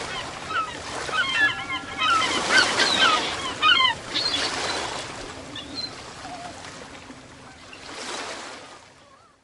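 Ocean surf washing in and out, with many birds calling over it in short, bending cries that are busiest in the first four seconds. The surf swells again about eight seconds in, then fades out.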